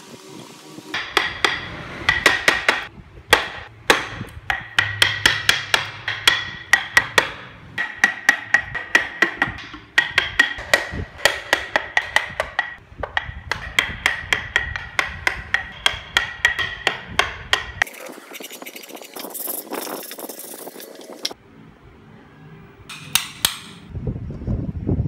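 A carving chisel being tapped into hardwood in a quick, steady run of sharp strikes, about three or four a second, with a short ring on each. Near the end the strikes stop for a few seconds of scraping hiss, then a few more taps.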